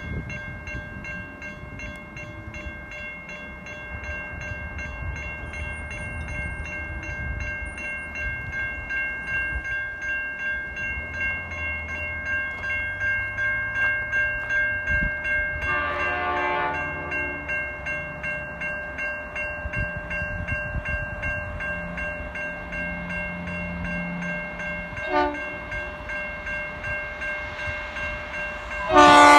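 Level crossing bells ringing steadily with a regular beat while a V/Line N class diesel-electric locomotive approaches, its rumble building. The locomotive's horn sounds for about a second midway, gives a short toot a few seconds later, and starts a loud blast near the end.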